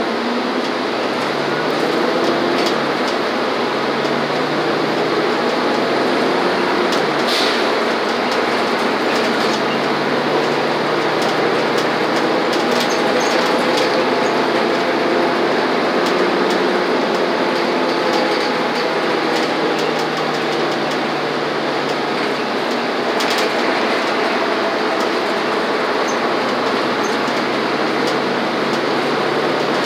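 A city transit bus heard from inside the cabin while under way: a steady engine and drivetrain drone over road noise, the engine note rising and falling gently. Two brief rattles come through, one about a quarter of the way in and one about three-quarters in.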